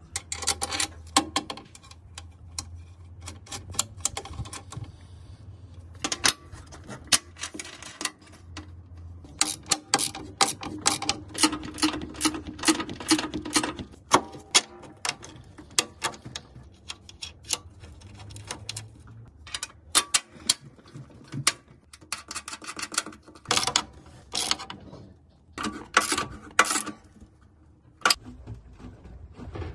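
Irregular clusters of sharp metallic clicks and clinks from a steel bolt, nut and hand tools (a socket wrench and a spanner) as a washing machine shock absorber's mounts are bolted in and tightened.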